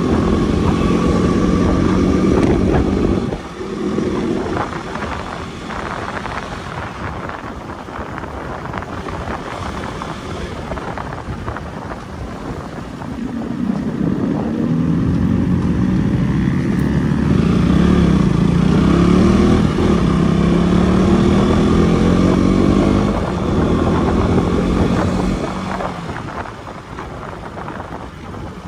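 Motorcycle engine running on the move, its pitch rising and falling as the throttle changes. It is louder in the first few seconds and again through the middle stretch, and quieter in between and near the end.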